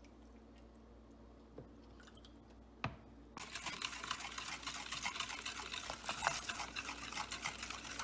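Whisk stirring sugar into water in a plastic bowl: a dense, scratchy clatter that starts suddenly about three seconds in, after a quiet stretch broken by a single click.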